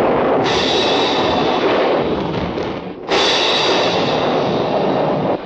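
A studio storm sound effect made by hand with props: a dense, steady rushing hiss like heavy rain. It comes in two long surges, and the second starts about three seconds in.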